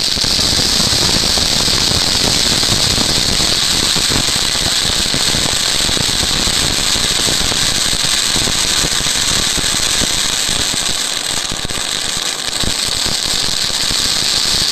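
Dazzle anar (flower-pot fountain firework) burning: a loud, steady rushing hiss of the spark jet with dense crackling running through it.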